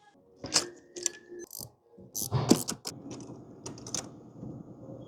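Ratchet wrench clicking, with metal tool knocks, as a spark plug is unscrewed.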